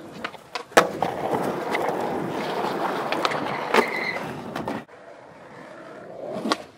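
Skateboard on concrete: a sharp clack about a second in, then the wheels rolling for several seconds with another knock just under four seconds in, then a quieter stretch with a couple of light knocks near the end.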